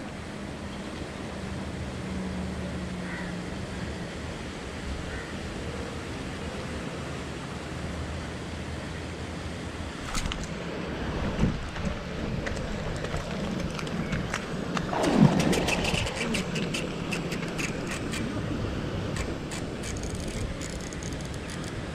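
Okuma Komodo SS baitcasting reel being cranked on a retrieve over steady wind noise on the microphone; from about halfway, a run of irregular sharp clicks and one loud burst.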